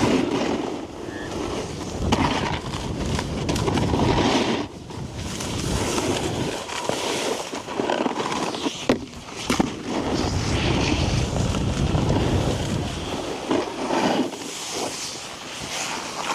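Snowboard sliding and scraping over packed snow, with wind buffeting the microphone and a few sharp clicks near the middle.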